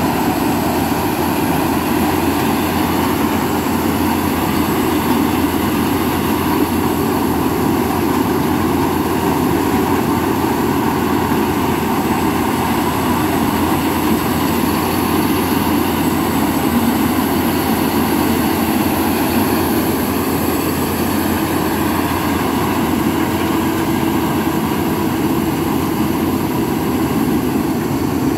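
Tracked corn combine harvester running steadily under load, its engine and threshing machinery working as it cuts through dry standing corn.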